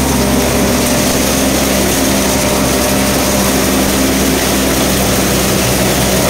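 Mahindra Oja 2121 compact tractor's diesel engine running steadily and driving a thresher, the machine's drum and fan giving a loud, even hum with a few steady low tones.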